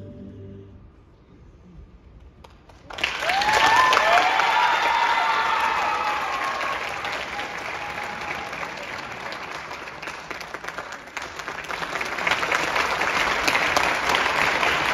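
The dance music fades out, then about three seconds in an audience breaks into applause with high cheers and whoops. The clapping eases a little, then swells again near the end.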